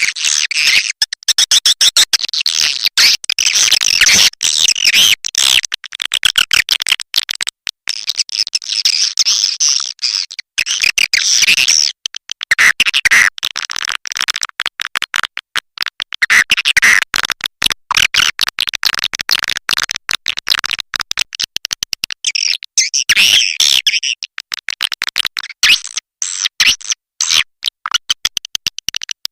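Swiftlet lure call: dense, rapid, high-pitched twittering and clicking chirps of edible-nest swiftlets, a recording meant to draw swiftlets into a nesting house, mixed as a mating call.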